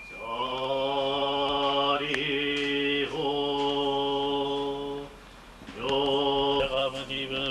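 Japanese Buddhist chanting: voices holding long notes on one steady low pitch, with a short breath break about five seconds in before the chant picks up again.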